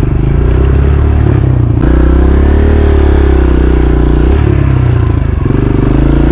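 Dirt bike engine running while riding, the throttle opened sharply about two seconds in. The engine note rises and falls, dips briefly twice in the second half, then picks up again near the end.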